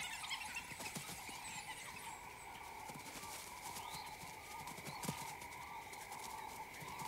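A pack of African wild dogs moving through dry grass: faint scattered footfalls and rustling, with faint high calls from the dogs over a steady background drone.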